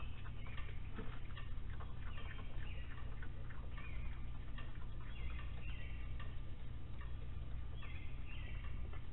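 Night porch ambience picked up by a security camera's microphone: a steady low hum, frequent small clicks and ticks, and short high chirping calls from a night animal every second or so, several in quick pairs near the middle and end.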